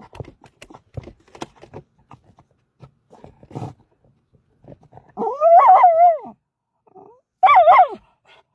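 A dog whining in two drawn-out, wavering calls, the first about five seconds in and the second near the end. Before them come scattered light clicks and scratches.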